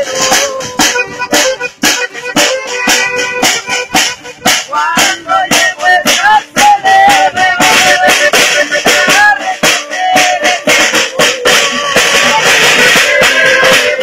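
A norteño band playing live: a button accordion carries the melody over a steady, even beat.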